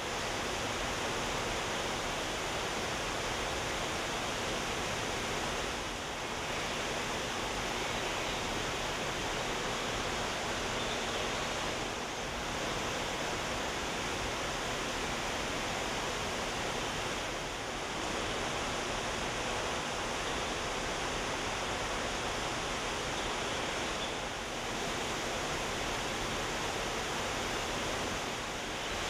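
Steady rush of a small artificial waterfall, an even hiss of falling water with no distinct events.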